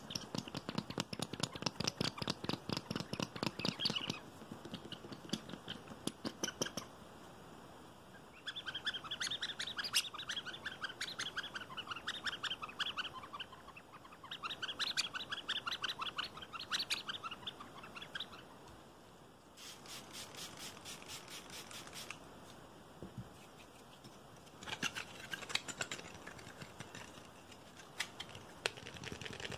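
Fast fingernail tapping and scratching on a yellow rubber toy, with runs of short squeaks as fingers rub the rubber from about a third of the way in. Later comes a quick, evenly spaced run of sharp taps, then more tapping on a pink plastic piece near the end.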